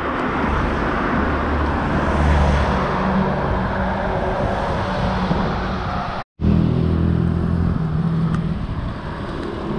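City street traffic: motor vehicles running close by, with engine hum and tyre noise swelling as a car passes about two seconds in. The sound cuts out completely for a split second a little past six seconds in.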